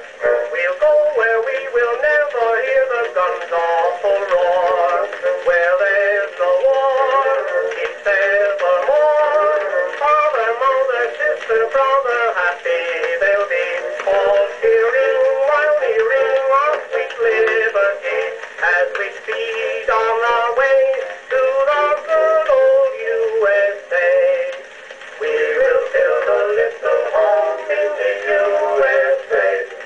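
A 1915 Edison Blue Amberol cylinder record playing on an Edison cylinder phonograph: an acoustically recorded popular song with orchestra, its sound narrow and thin, with almost no bass.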